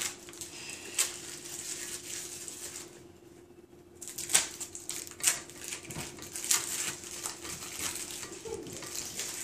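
Plastic wrappers being peeled off individually wrapped cheese slices, crinkling, with a few sharp clicks and taps on the counter. A faint steady hum underneath.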